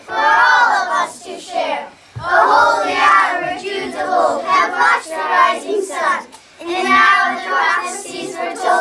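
A group of young children singing together in phrases, with short breaks about two seconds in and again a little after six seconds.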